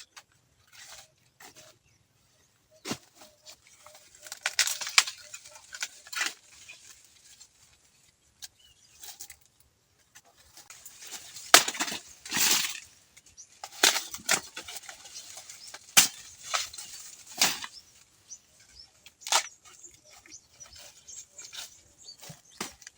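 Irregular rustling of dry plant material, broken by sharp snaps and cracks, some of them loud.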